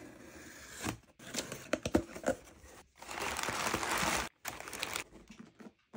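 Cardboard shipping box being opened, then crumpled kraft packing paper rustling and crinkling as a hand digs through it, loudest in a dense stretch about halfway through.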